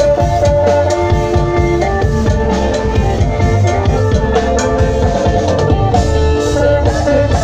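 A live Thai procession band playing loud festive music through loudspeakers: a drum kit keeps a steady beat under a sustained, repeating melodic line.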